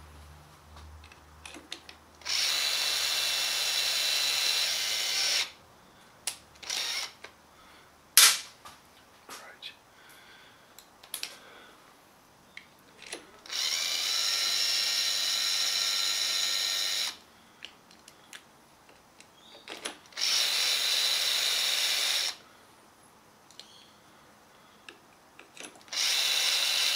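Metabo cordless drill-driver running screws into a steering wheel's hub flange, its motor whining steadily in four runs of two to four seconds each. Between the runs come small handling clicks and one sharp clack about eight seconds in.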